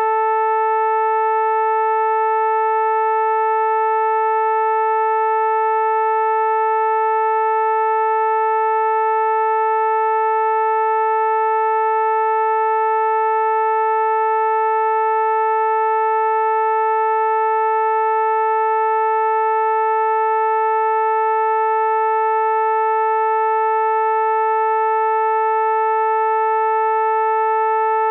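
A synthesized vocoder-style tone held at one steady pitch, rich in overtones, unchanging in pitch and loudness.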